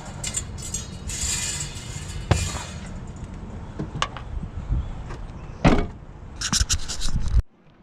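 Knocks and clatter of a baby crib frame being handled and loaded into a Jeep, with a door-like bang. The loudest knock comes about two-thirds through, a quick cluster of rattles follows, and the sound cuts off abruptly near the end.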